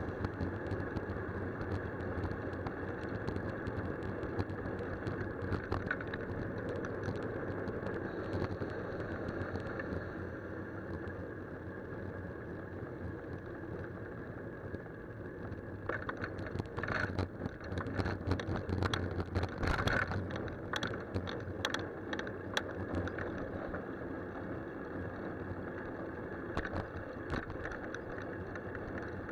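Riding noise picked up by a handlebar-mounted camera on a moving bicycle: a steady rumble of wind and tyres on a wet road. About halfway through comes a run of sharp clicks and knocks lasting several seconds.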